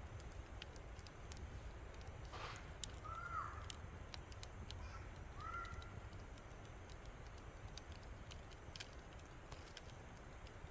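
A crow cawing twice, a few seconds apart, over the scattered snaps and crackles of a wood fire.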